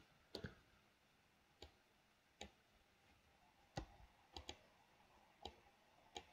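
Faint, sharp clicks of a computer mouse and keyboard, about eight in all, some single and some in quick pairs, spaced a second or so apart.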